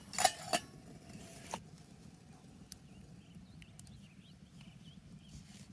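A few sharp metallic clinks of a camp cooking pot and utensils in the first second and a half, one leaving a brief ring, then a low steady background with a few faint high chirps.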